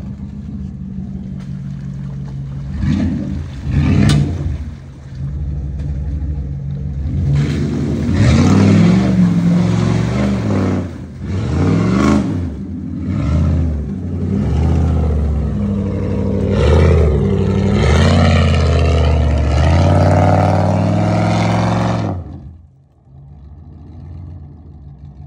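Jeep Grand Cherokee V8 engine revving hard while the SUV struggles up a deep mud rut, the revs rising and falling again and again. Near the end it drops back abruptly to a low, steady running sound.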